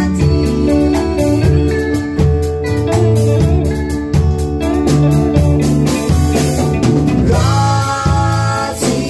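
A man and a woman singing an old Malagasy pop song into microphones over band accompaniment with a steady drum beat.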